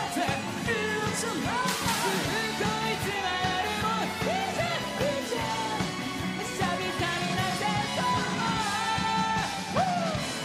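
Rock band playing live: electric guitars and a drum kit driving under a sung lead vocal that glides between notes.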